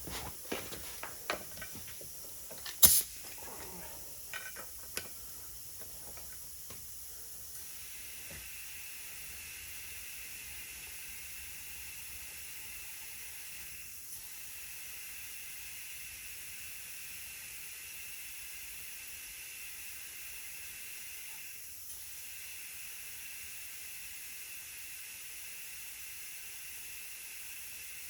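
A few clicks and knocks with one sharp snap about three seconds in, then compressed air hissing steadily through a gauged tire inflator into a Humvee tire being aired up to about 25 psi. The hiss breaks off briefly twice.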